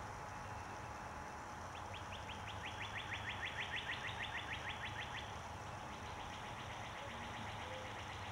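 A small songbird singing a rapid dry trill of short notes, about eight a second, from about two seconds in for some three seconds, with a fainter trill following near the end, over a steady low background rumble.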